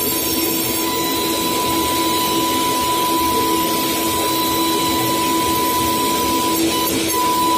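Router spindle on a RUK flatbed cutting machine running at speed and cutting a board during a test cut: a loud, steady high whine over the rushing noise of the cut, the whine faltering briefly near the end.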